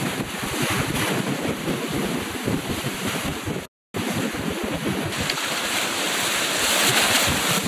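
Wind buffeting the microphone over the rush of water past the hull of a Searunner trimaran under sail. The sound cuts out completely for a moment a little before the middle.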